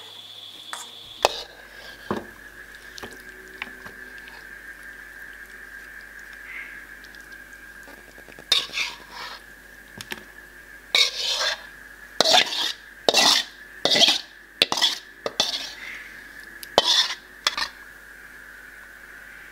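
A metal spatula scraping and knocking against a metal wok as cooked jengkol stew is scooped out onto a plate. It starts with a few isolated clinks, then a quick run of scrapes and knocks in the second half. A faint, steady high tone runs underneath.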